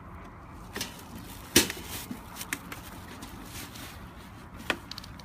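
A plastic-wrapped tabletop smoker being handled and packed into its cardboard box: a sharp knock about one and a half seconds in, another near the end, and smaller clicks and handling noise between.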